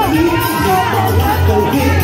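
Live band playing upbeat dance music with a singer, over a strong, steady bass line.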